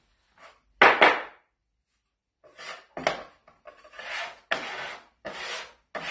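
Metal bench scraper scraping across a wooden pastry board to clear stuck dough. There is one loud scrape about a second in, then from about two and a half seconds in a run of shorter scraping strokes, one or two a second.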